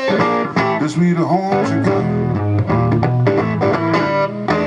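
Live blues band playing an instrumental break: a guitar picking a rhythmic figure over a steady bass line.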